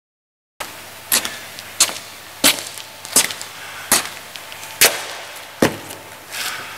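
A regular series of sharp knocks, seven in all, about one every three quarters of a second, following a brief moment of dead silence, with a softer swell of sound near the end.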